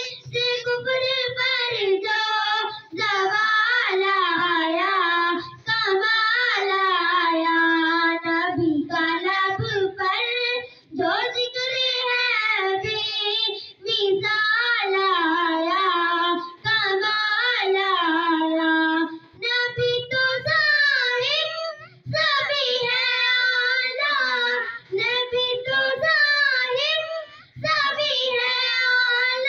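A young girl singing an Urdu naat unaccompanied into a microphone, in long phrases with a wavering, ornamented melody and short pauses for breath between them.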